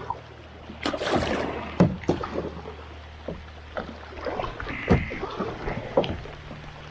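Kayak paddling: the paddle blades dip and splash in the water in uneven surges, with scattered sharp knocks, over a steady low hum.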